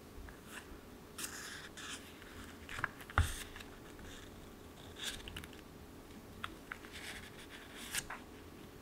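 A pad of paper memo sheets in its plastic-and-card package being handled and leafed through: paper rustling and flipping with light taps and clicks, the sharpest tap about three seconds in.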